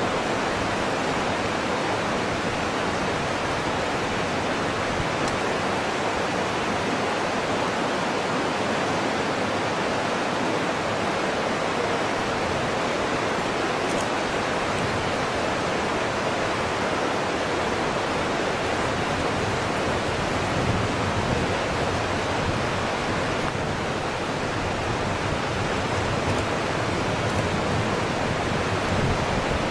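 Steady rushing noise at an even level, with no distinct events in it.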